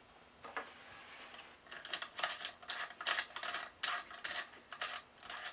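Small metal wire fitting of a hanging kit being screwed by hand onto a threaded holder in a wooden board, with the thin steel wire dragging on the wood. It is quiet at first, then about a second and a half in comes a run of short, scratchy clicks and rubs that lasts until near the end.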